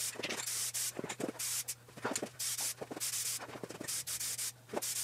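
Aerosol spray can of SEM Color Coat satin black hissing in short passes, each a fraction of a second, as a light first coat is misted onto plastic door panels. A few sharp clicks fall between the passes.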